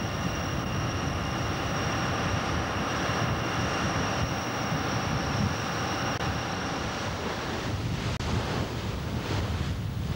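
Wind buffeting the microphone and sea water rushing and breaking along the hull of a ship under way at sea, as a steady rushing noise with a low rumble. A thin steady high whine runs over it until about eight seconds in, where the sound drops out for an instant and the whine stops.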